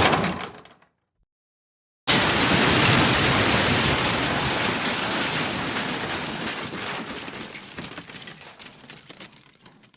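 Debris sound effect. The tail of one crash fades out within the first second. After a short silence, a dense rush of falling debris starts suddenly about two seconds in and slowly dies away over about eight seconds.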